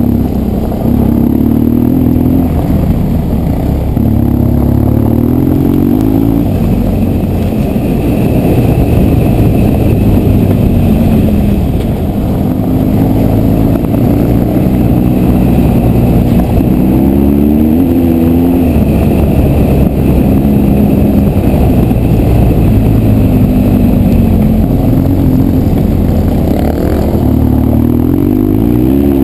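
BMW R1200GS flat-twin engine under way off-road, its pitch rising and falling with the throttle, and the revs climbing several times as the bike accelerates.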